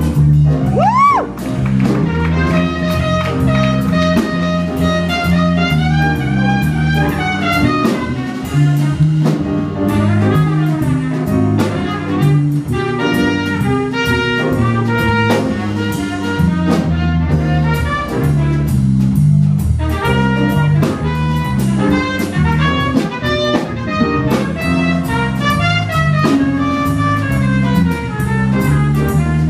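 Live jazz band playing continuously: a melody line with slides over keyboard and drum kit.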